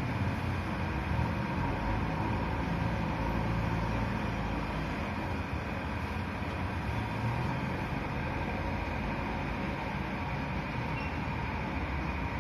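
Diesel engines of a JCB backhoe loader and a Tata SE 1613 tipper lorry running steadily, heard from a distance, with a low rumble and no distinct knocks.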